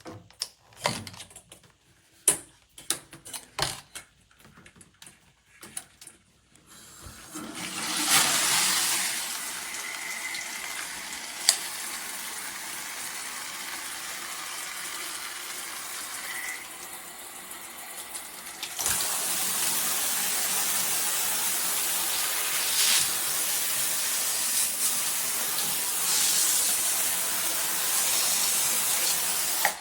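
A series of clicks and knocks, then water spraying from a shower head in a steady hiss that grows louder about two-thirds of the way through.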